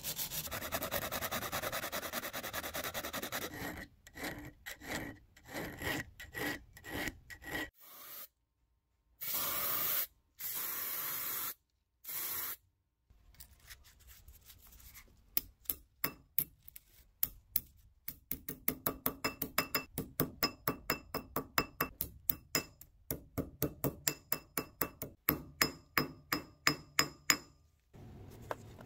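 Abrasive cloth strip rubbed back and forth around a metal burner tube, a steady scrubbing for the first few seconds. After a few short gaps, a hand file works a thin metal strap in regular short strokes, about three a second, with a faint metallic ring.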